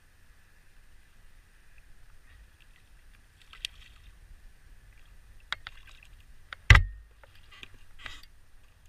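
A small puppy drum (young red drum) splashing at the surface beside a plastic kayak as it is landed by hand, with scattered knocks and one loud thump against the kayak about two-thirds of the way in.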